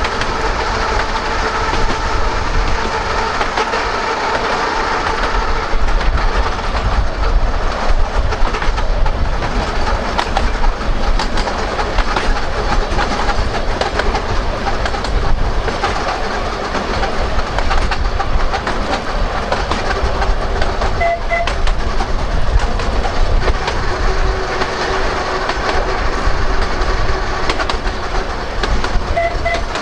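Narrow-gauge electric tram running along its track, heard from on board: a steady motor whine that shifts pitch, wheels clicking over the rails, and a constant low rumble. Two brief double beeps sound, about two thirds through and near the end.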